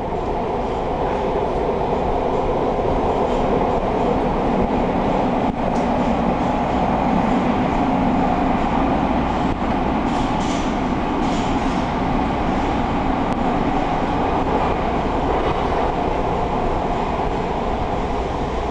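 Inside a moving MARTA rail car: steady rumble and rush of the wheels on the rails and the car running at speed, swelling over the first few seconds, with a few faint clicks.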